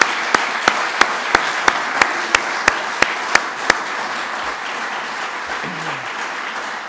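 Audience applauding, with loud, sharp claps about three a second from one pair of hands close to the microphone for the first three and a half seconds; the applause then slowly dies away.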